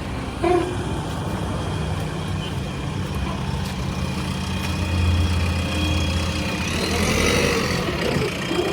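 JCB 3DX backhoe loader's diesel engine running steadily at work. Its low note swells louder for a second or so about five seconds in.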